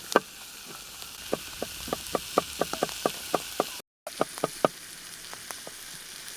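Vegetables frying in a pan: a steady sizzling hiss broken by many irregular sharp clicks and pops, with a brief dropout about four seconds in.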